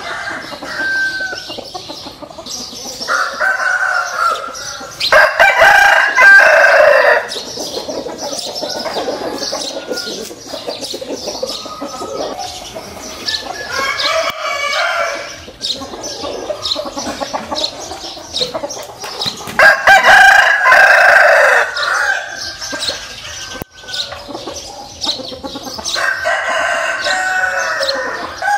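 Fighting-breed roosters crowing: about four long crows several seconds apart, the loudest about a fifth of the way in and again past the middle, with shorter chicken calls and clucks between them.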